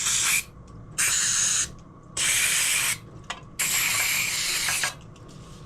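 Aerosol brake cleaner sprayed in four short hissing blasts into the threaded bolt holes of a motorcycle engine's crankcase; the last blast is the longest.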